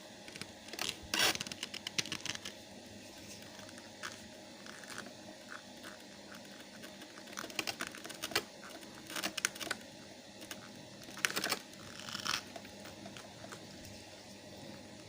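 Plastic parts of a pressure washer being handled and fitted together: scattered light clicks, taps and rustles, with a few louder clatters, the loudest about a second in and just after eleven seconds.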